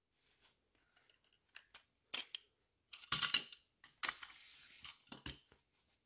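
Gloved hands handling small diecast toy car wheels and parts: scattered light clicks and scratchy rubbing, loudest about three seconds in, with a second or so of steady rubbing after that.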